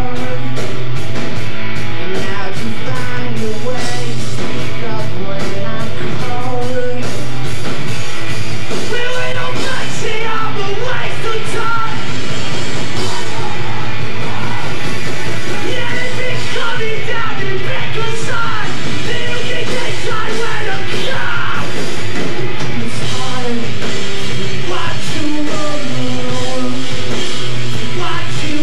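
Pop punk band playing live: electric guitars, bass and drums at full volume with a male lead singer singing and yelling into the microphone, recorded from the crowd on a VHS-C camcorder.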